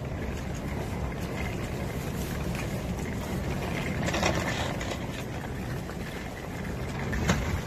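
Pet stroller wheels rolling over a paved walkway: a steady low rumble with a few faint clicks.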